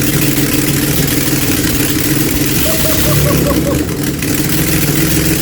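DeLorean DMC-12's rebuilt PRV V6 running loud and steady on its first start, with no exhaust fitted, so the raw open-manifold exhaust noise comes straight off the engine.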